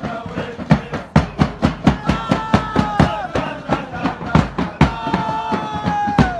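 Supporters' chant: a group of men singing in unison, holding long notes that drop off at the end of each line, over a fast, steady beat on a bass drum struck with sticks.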